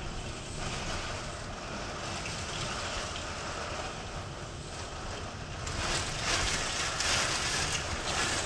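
Storm wind of about 60 mph blowing with driving rain, gusting against the microphone with a low buffeting rumble. A stronger gust swells the hiss about six seconds in.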